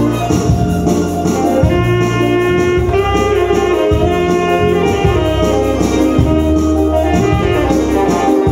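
Saxophone playing a melody of held, changing notes over electronic keyboard accompaniment, with a bass line and a steady programmed beat.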